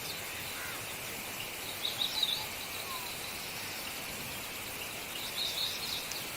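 Outdoor ambience with birds chirping in short, quick bursts about two seconds in and again near the end, over a steady high insect drone and an even background hiss.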